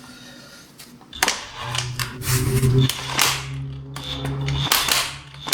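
Impact wrench hammering in short bursts on the forcing screw of a bearing puller, working a driveshaft carrier bearing off its shaft. It starts about a second in as a rattle of rapid blows over a steady motor hum, stops briefly, then gives one more short burst near the end.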